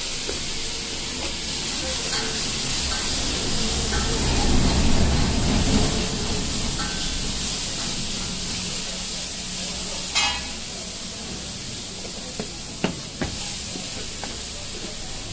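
Steady hissing background noise with a low rumble that swells a few seconds in. Near the end come a few sharp clicks and clinks as steel plates and plastic containers are handled at a fuchka stall.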